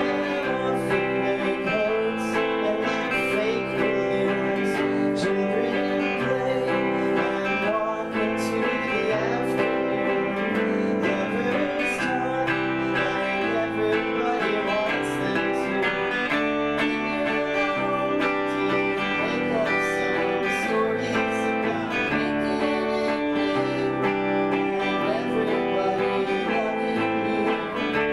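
Live band music without drums: guitars strumming chords steadily, with sustained notes ringing over them.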